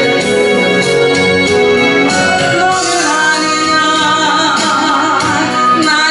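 A woman sings a Korean gospel song into a handheld microphone, holding long, wavering notes over music.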